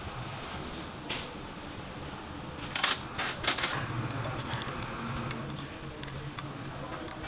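A few sharp metallic clinks as a spanner is handled and fitted onto the nut on a starter motor's drive-pinion shaft, clustered about three seconds in, with a lighter click about a second in, over a steady low hum.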